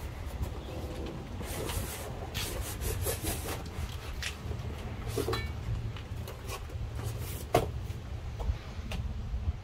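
Handling noise of hands working on the dash trim: irregular rubbing and scraping with scattered clicks and a sharper knock near the end, over a steady low rumble.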